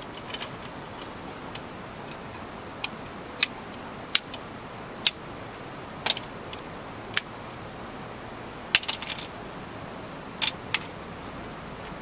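Mountriver Click Cot folding camp cot being set up: its legs and brackets snapping into place with about nine sharp clicks, with a short rattle about nine seconds in, over a steady hiss.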